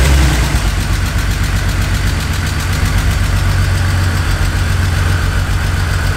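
BMW E46 engine idling just after its first start in months, running steadily. Its first start after a fuel-system rebuild, with a misfire the owner puts down to stored error codes.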